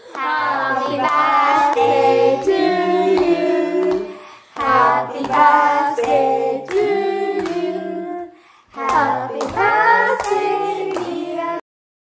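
Voices singing a song in three phrases over regular handclaps and low sustained notes, cutting off abruptly about a second before the end.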